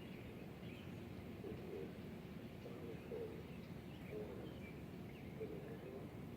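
Faint outdoor ambience: birds chirping and cooing now and then over a steady low background noise.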